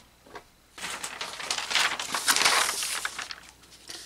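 Large paper pattern sheets rustling and crinkling as they are handled and laid flat over rayon fabric. The rustle starts about a second in, is loudest midway and dies down near the end.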